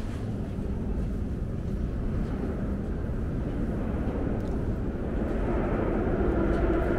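Low rumble of a metro train heard through the station hall, growing steadily louder, with a motor whine joining in about five seconds in.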